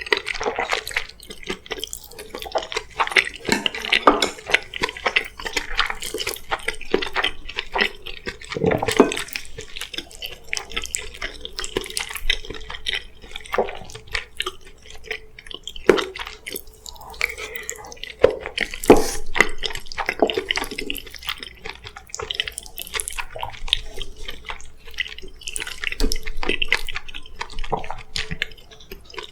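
Close-miked wet chewing and mouth sounds of someone eating soft, saucy food (rice with curry and mapo tofu), with irregular smacks and sharp clicks.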